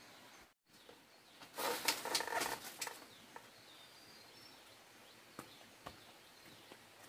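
A chicken squawking loudly in short broken cries for about a second, a second and a half in, over faint bird chirps. A couple of soft footstep knocks follow.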